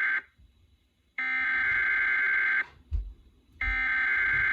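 Emergency Alert System SAME header data bursts broadcast over FM radio: the digital data tones are heard as repeated harsh bursts about a second and a half long with about a second's gap between. The tail of one burst ends at the very start, a full burst follows about a second in, and another begins shortly before the end.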